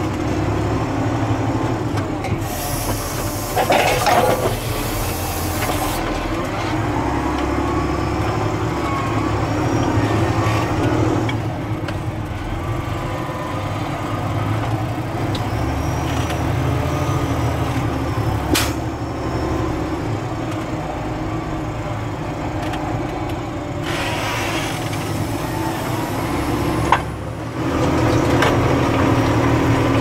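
Valtra Versu T213 tractor's diesel engine running steadily at the headland turn, with two bursts of hiss, a few seconds in and again near the end. Near the end a sharp knock and a brief dip, then the engine sounds louder and heavier as the five-furrow reversible plough goes back into the ground.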